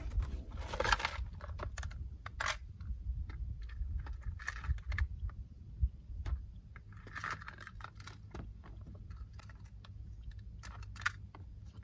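Fishing lures and tackle clicking and rattling in a clear plastic tackle box as a hand sorts through it: scattered sharp clicks and a few short rustling scrapes, over a low steady rumble.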